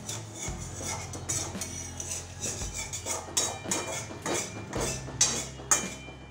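A spatula scraping and knocking against a metal kadai in quick, irregular strokes, stirring potatoes through a thick spice masala as it is cooked down.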